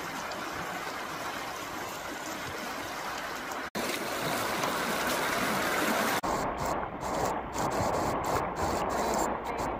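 Rushing river current over shallow riffles, a steady wash of water noise that cuts abruptly twice and changes in tone at each cut.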